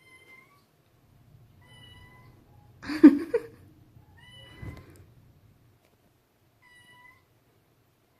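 Shelter cats meowing: several short, faint, high-pitched mews, and one loud, rough cry about three seconds in.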